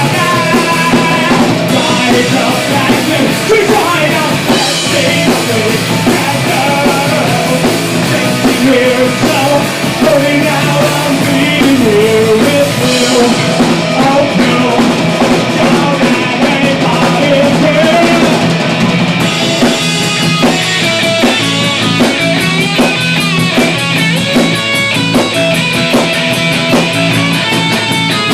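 Loud punk rock music: a band with drum kit and electric guitar, a singing voice over it in the first half, then a denser, driving beat from about two-thirds of the way through.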